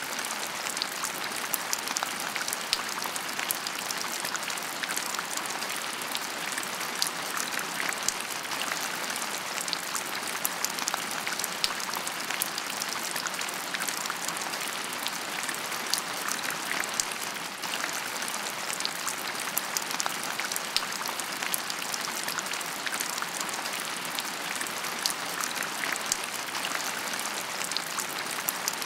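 Steady rain: an even hiss with many small ticks of drops.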